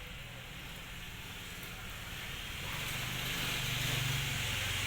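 Steady rushing noise with a low hum, growing louder from about halfway through.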